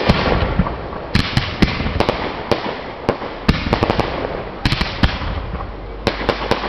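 Fireworks going off: many sharp pops and bangs, several a second, over a steady crackling hiss that swells up afresh every second or so as new shots fire.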